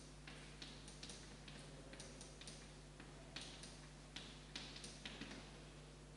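Chalk on a blackboard as a word is written: faint, irregular clicks of the chalk tip striking the board, with short scratchy strokes between them.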